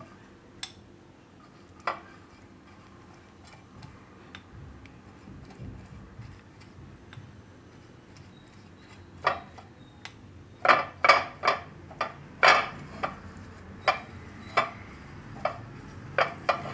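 Light clinks and taps of a silicone pastry brush working around the cups of a nonstick appe pan while greasing it with oil. A couple of isolated taps at first, then a quicker run of louder clinks from about nine seconds in.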